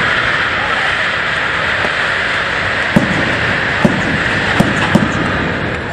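A large ship's hull sliding down the shipyard launch ways into the water, making a loud, steady rushing, scraping noise as it is launched. A few sharp cracks sound over it in the second half.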